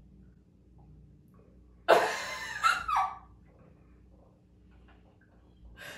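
A person coughs harshly about two seconds in, ending in a short falling voiced sound, after swallowing a drink that tastes like mouthwash.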